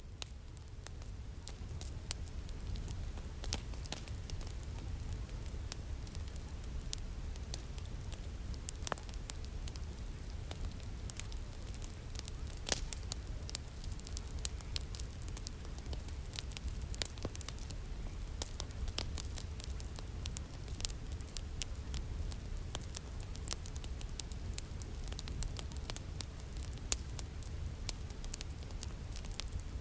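Pink noise track: a steady low, rushing noise, with a faint steady tone near 432 Hz from an alpha binaural beat and many scattered sharp crackles and clicks. It swells up over the first couple of seconds.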